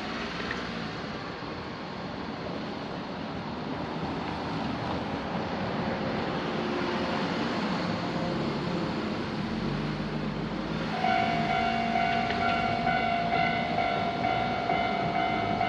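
A steady rushing noise grows louder, then about eleven seconds in a Japanese level crossing's electronic warning bell starts ringing in a steady repeating clang, signalling an approaching train.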